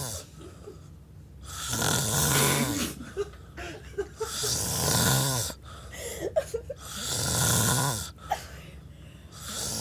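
A drunk man snoring heavily while asleep: three loud snores, each about a second long and roughly two and a half seconds apart, with a fourth beginning at the very end.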